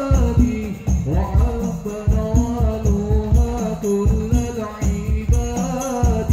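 Hadrah ensemble performing: a male lead singer sings a devotional melody into a microphone, his pitch sliding between held notes, over a busy, steady rhythm of frame drums and a deep bass drum, with jingles on top.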